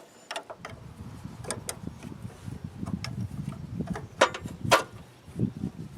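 Irregular metallic clicks and clinks of hand tools working on a winch solenoid pack, over a low rumble that starts about half a second in. The two loudest clicks come a little past the middle.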